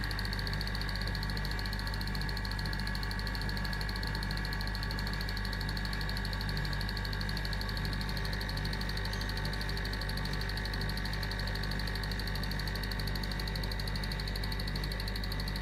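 Steady electrical hum of a running home-made linear accelerator's equipment, with a thin high whine above the low hum and no change in level.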